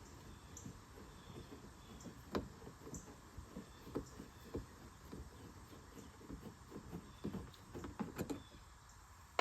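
Faint, scattered clicks and taps of a small bolt and metal dash parts being worked loose and handled by hand, with a few sharper knocks about 2.4, 4 and 8 seconds in.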